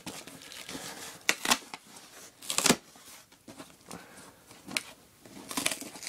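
Folding pocket knife cutting and scraping through packing tape and the glued cardboard seam of a shipping box, in short sharp rasps with cardboard rustling between them. There are strokes about a second and a half in, near three seconds, near five seconds, and a quick cluster near the end.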